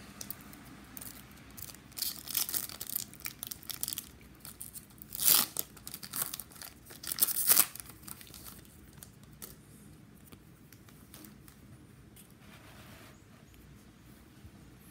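A hockey card pack's wrapper being torn open and crinkled in several sharp rips, the loudest about five and seven and a half seconds in, then only faint rustling.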